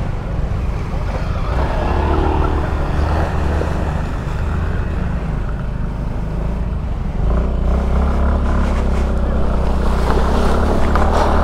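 Yamaha Mio Gear 125 scooter's single-cylinder engine running steadily under way, with tyre and wind noise. The engine note rises a step about seven seconds in.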